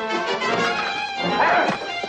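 Orchestral score with brass playing, and a short burst of noise about a second and a half in.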